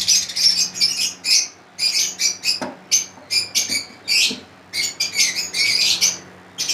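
Lovebirds chattering: a string of short, high-pitched chirps and squawks in quick clusters, with brief gaps between them.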